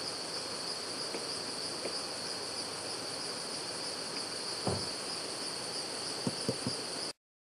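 Glacial river rushing in a steady hiss, with a few faint knocks in the second half. The sound cuts off suddenly just before the end.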